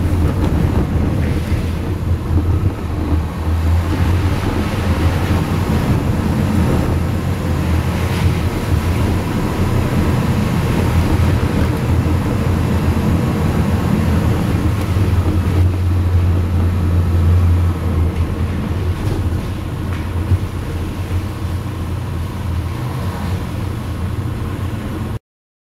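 Car driving through a road tunnel: a steady low engine and tyre rumble, which stops abruptly near the end.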